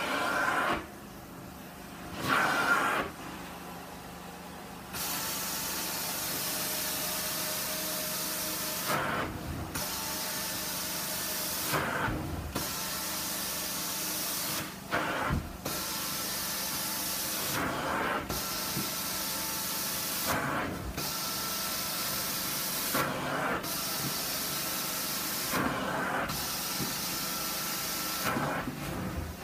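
Carpet extraction cleaner's floor wand spraying cleaning solution into the carpet: a loud hiss that starts about five seconds in and breaks off briefly every two to three seconds between strokes. The machine's motor runs steadily underneath.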